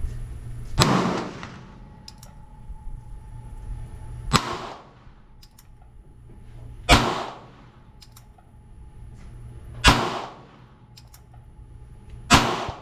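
North American Arms Black Widow .22 LR mini revolver fired five times, one shot every two to three seconds. Each shot is a sharp crack with a short ringing tail.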